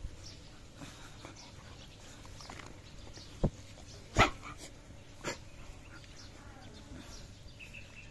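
Dogs at play: three short, sharp barks about a second apart, the loudest about four seconds in, over a low background.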